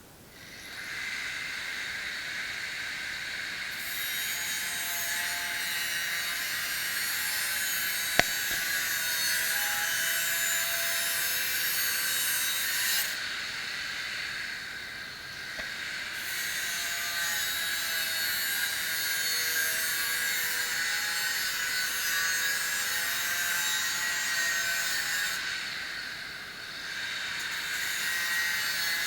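Angle grinder working on car-body metal: a steady high-pitched grinding hiss with a whine whose pitch wavers as the disc is loaded. It eases off briefly twice, and there is one sharp click.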